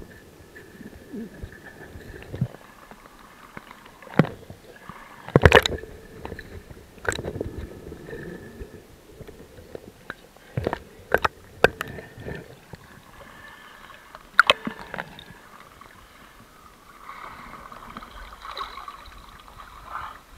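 Muffled underwater sound picked up by an action camera in its waterproof housing: a low gurgling bed with scattered sharp knocks and clicks against the case, the loudest about five seconds in. Near the end the sound brightens into splashy noise as the camera comes up to the surface.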